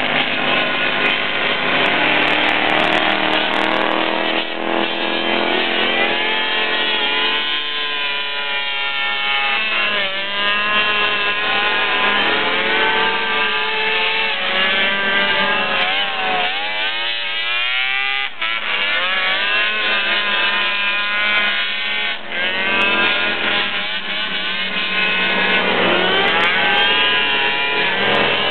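Engines of several small off-road racing buggies, revving up and dropping off again and again as they race around a dirt track. The pitches of several engines overlap and sweep up and down.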